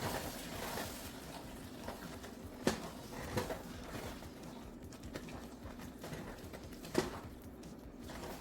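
A spoon stirring rice and stock in a cooking pot, scraping with scattered light knocks against the pot, two of them sharper. A low hiss of the pot cooking lies underneath.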